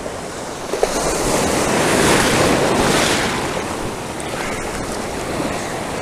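Ocean surf breaking and washing in, the rush of water swelling to its loudest about two seconds in and then easing off.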